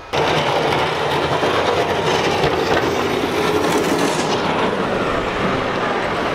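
Wheel loader with a front plow blade clearing snow: its diesel engine runs under load beneath a dense, steady rush of noise from the blade working through the snow. The sound starts abruptly, right at the beginning.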